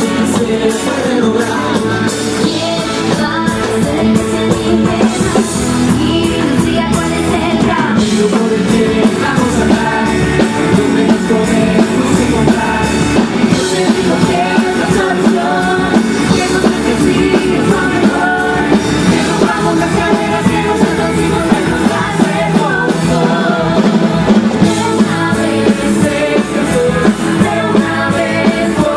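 A live rock-pop band playing a song with a singer, a steady full mix of voice and instruments.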